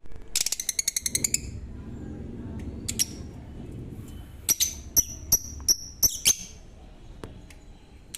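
Lovebirds chirping: a quick rattling run of sharp, high chirps near the start, a single chirp, then a string of about six loud chirps, the last ones sliding down in pitch. A low rumble sits underneath in the first half.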